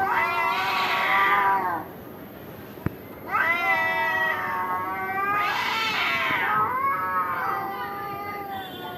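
Domestic cats caterwauling in a fight: three long, wavering yowls with short gaps between them, the last one trailing off.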